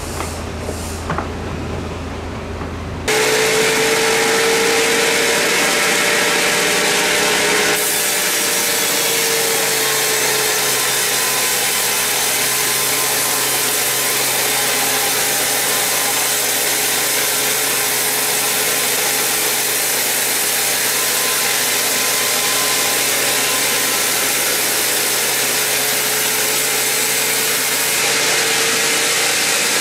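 Sawmill band saw ripping lengthwise through a huge mahogany log: a loud, steady cutting noise with a wavering whine, starting abruptly about three seconds in after a quieter hum.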